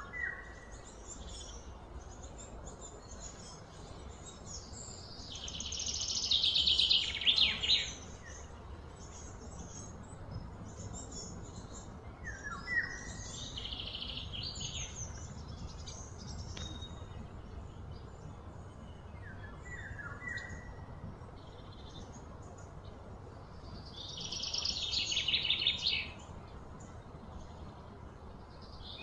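Birds singing and chirping outdoors: short chirps, and two loud, fast trilled phrases that swell for two to three seconds each, about five seconds in and again near the end, over a steady low background hum.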